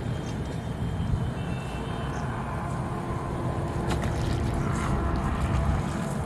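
A hooked fish splashing at the water's surface about four seconds in, a few short sharp splashes, over a steady low rumble.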